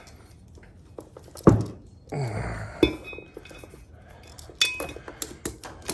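Metal parts of a brake rotor and wheel hub clanking and clinking as they are handled and fitted together. A sharp clank about one and a half seconds in is the loudest, followed by a short scraping rattle, and lighter clinks come near the end.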